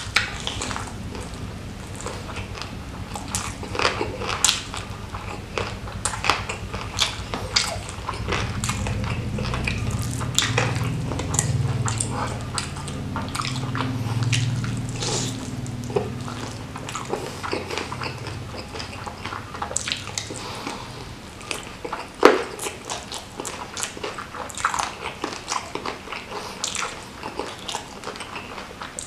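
Close-miked eating of ayam geprek, fried chicken smashed with chili sambal, with rice: bites and chewing with many irregular sharp crunches and crackles. The loudest crunch comes about 22 seconds in.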